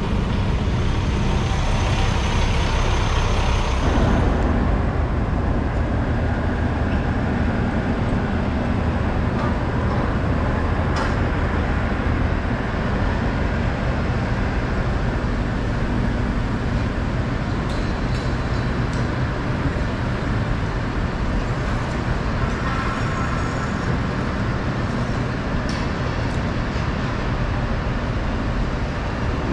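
Heavy truck engine running steadily, a low hum under a wash of noise. The hiss softens about four seconds in.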